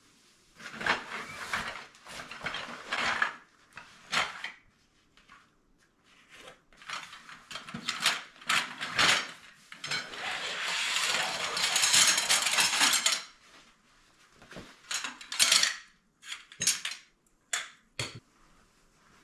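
Tent poles rattling and knocking together as they are handled, with a stretch of canvas rustling as the pole bag is pulled off them, then a run of sharp knocks as the poles are set down on end.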